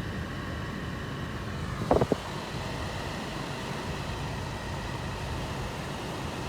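Steady low hum of a car's cabin with the engine running, broken by two short sounds about two seconds in.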